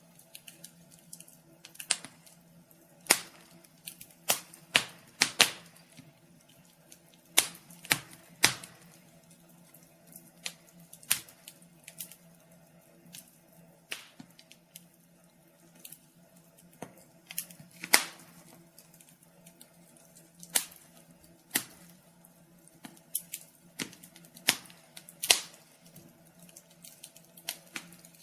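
Wood fire crackling in a fireplace: irregular sharp pops and snaps, some much louder than others, over a faint steady low hum.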